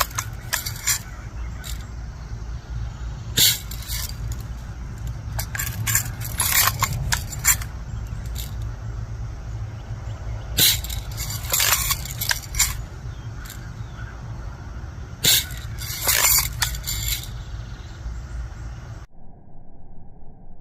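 BB gun shots and BBs striking a plastic toy tractor-trailer: clusters of sharp cracks and ticks a few seconds apart, over a steady low rumble. The sound cuts out about a second before the end.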